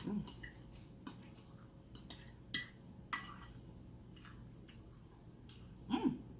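Mukbang eating sounds of an egg omelette being chewed: faint wet lip smacks and mouth clicks at irregular intervals.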